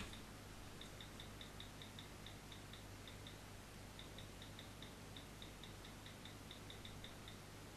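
Near silence: faint, rapid ticking, about five ticks a second in runs broken by short pauses, over a low steady hum.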